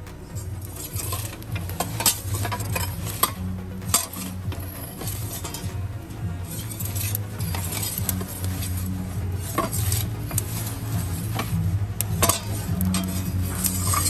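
Scattered clinks, scrapes and crackles at a wood-fired brick pizza oven as a metal pizza peel is worked across the brick oven floor beside the log fire, over a low hum.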